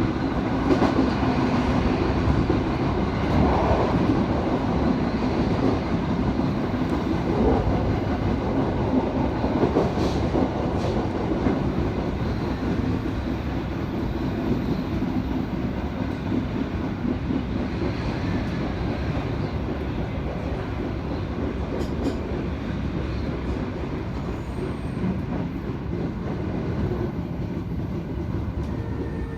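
Train running on the rails, heard from inside the passenger car: a steady rumble of wheels and running gear with some clickety-clack. It grows gradually a little quieter toward the end.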